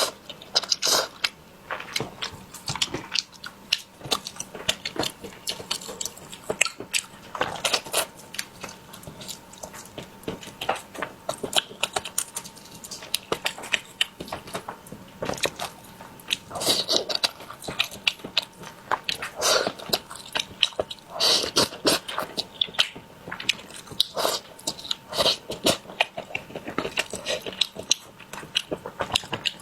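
A person chewing and biting food, with many irregular quick mouth clicks and crunches.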